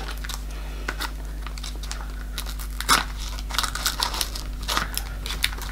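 Gift packaging being unwrapped by hand: scattered crinkling, rustling and tearing of paper, loudest about three seconds in.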